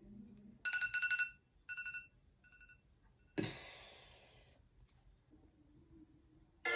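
A phone ringtone's electronic tone sounding three times, each shorter and fainter than the last, followed a second later by a breathy whoosh lasting about a second.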